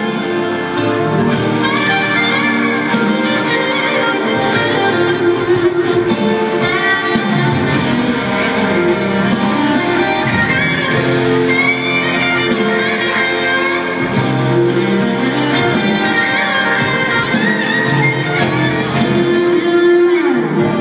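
A rock band playing live, with electric guitar over drums, heard from within the audience in a concert hall.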